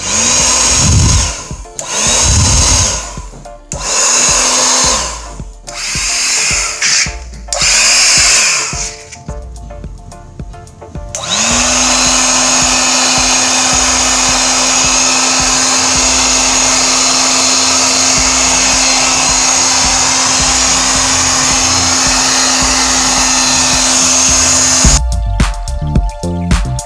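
Small electric mini air blower gun switched on in about five short bursts, its motor whining up to speed and winding down each time. Then it runs steadily for about fourteen seconds, with a steady motor whine and a rush of air.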